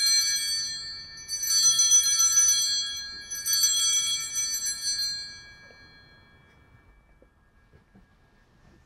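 Altar bells (sanctus bells) rung three times at the elevation of the chalice during the consecration, each ring about two seconds apart and shimmering as it fades; the last dies away about six seconds in.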